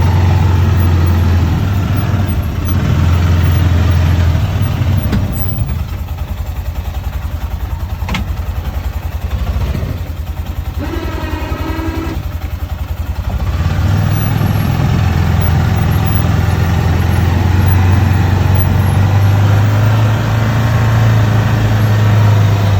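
Arctic Cat side-by-side's engine working under load as it pushes snow with its front blade. It eases to a lower, lighter note for several seconds in the middle, with a brief whine about eleven seconds in, then pulls hard again.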